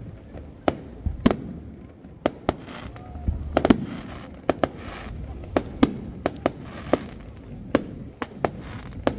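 Fireworks display going off: a quick, irregular run of sharp bangs, about two a second, some followed by a short crackling hiss, over a low rumble.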